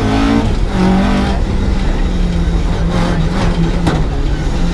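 Rally car engine running steadily under load in second gear, heard from inside the cabin, with a short sharp tick a little before the end.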